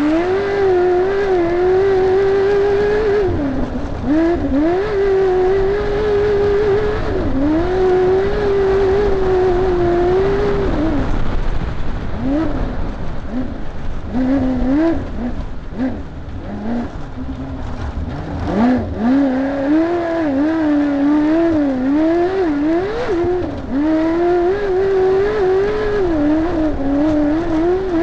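Race vehicle's engine heard from inside the car, running hard at high revs with the pitch wavering as the throttle works. About ten seconds in it drops off into short blips of throttle, then climbs back up and runs hard again with frequent rises and dips.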